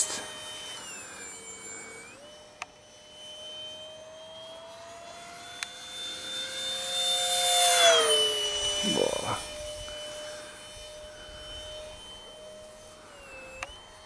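Whine of the 64 mm electric ducted fan on an RC flying wing making a fast pass overhead. The pitch dips and recovers a couple of times. It swells to its loudest with a rushing sound about eight seconds in, then drops in pitch as the wing goes by.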